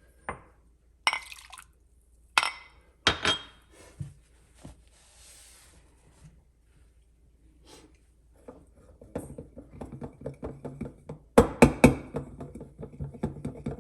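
Cups, glassware and a milk pitcher knocking and clinking as they are handled. There are a few separate sharp clinks at first, then a busier clatter with the loudest strikes near the end.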